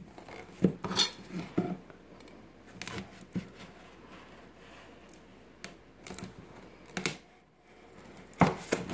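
Hands working a cardboard watch box open: scattered scrapes, taps and knocks of cardboard on a table as the inner box is slid out of its sleeve, with a louder cluster near the end.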